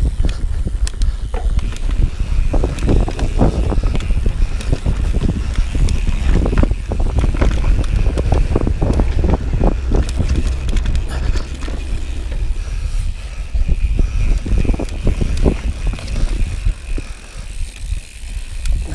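Mountain bike ridden fast down a dirt forest singletrack: tyres running over the dirt and the bike rattling and knocking over roots and bumps, with a heavy low rumble throughout.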